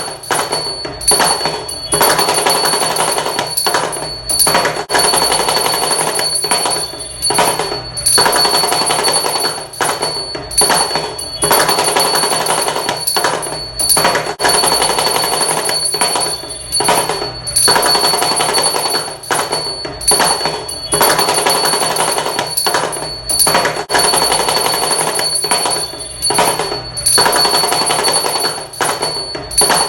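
Damru, the small two-headed hourglass pellet drum, rattled rapidly in dense runs that break off briefly every second or two. A steady high ringing tone sounds along with it.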